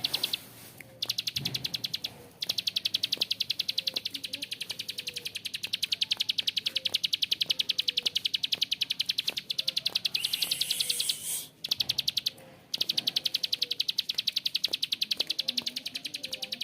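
A prenjak klik (prinia) giving its long, harsh rattling trill, a very fast run of evenly repeated clicks held for several seconds at a time. The runs break off briefly about a second in, about two seconds in, and for about a second near twelve seconds.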